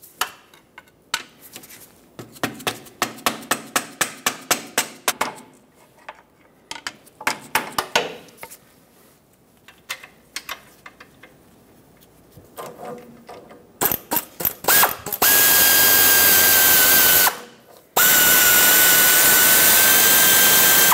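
Quick metal-on-metal taps, about four a second in runs, as a pry bar strikes the end of a stuck alternator pivot bolt to drive it out. Later a pneumatic air ratchet runs in two long, loud bursts with a steady high whine, turning the bolt.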